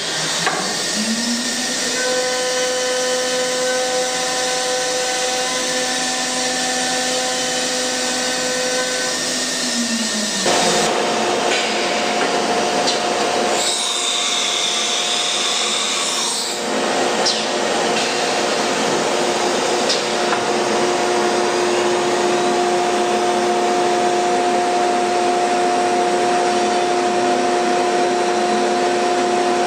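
CNC router with a 5.5 kW water-cooled spindle spinning up about a second in and running at a steady high whine, which drops away after about ten seconds. The router then mills MDF with 6 mm end mills: a steady whine over a loud rushing hiss of cutting and dust extraction.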